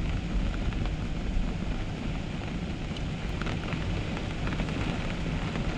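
Storm wind of 50 to 60 mph blowing off the lake, rumbling steadily on the microphone, with rain falling and scattered ticks of drops hitting.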